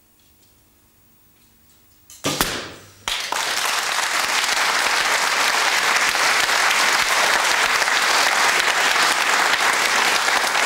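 Near silence, then about two seconds in a recurve bow is shot and the arrow bursts a balloon on the target with one sharp crack that dies away within a second. A studio audience then applauds steadily and loudly.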